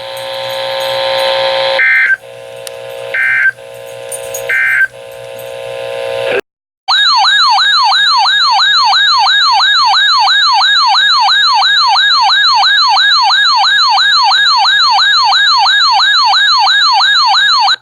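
Emergency Alert System tones after a weather warning. First come three short data bursts over a steady buzzy tone, marking the end of the message. After a brief gap, a loud warbling alert tone sweeps up and down about three times a second for around ten seconds, then cuts off suddenly.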